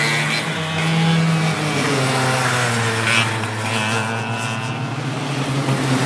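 Go-kart engines running on a track. The nearest kart's engine holds a steady note, then drops in pitch about one and a half seconds in, while other karts' engines rise and fall fainter above it.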